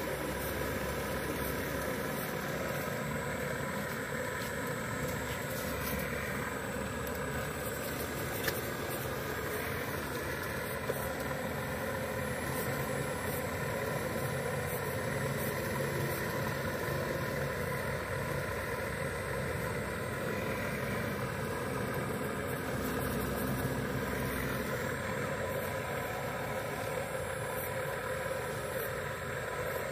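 Remote-control Cat 336D scale hydraulic excavator running steadily as it digs, a constant engine-like drone, with two brief clicks about a third of the way in.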